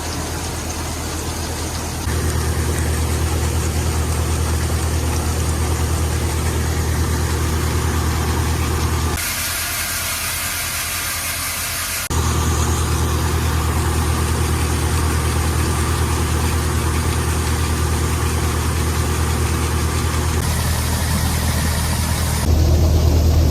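A farm tractor's engine running steadily with a low hum, heard in several spliced clips. For about three seconds near the middle a loud hiss takes over from the engine.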